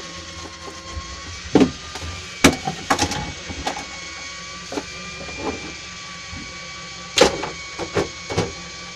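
Fishing reel winding in line on a hooked flying squid: a steady high whine over a low hum, broken by several sharp knocks and clicks, the loudest about two and a half and seven seconds in.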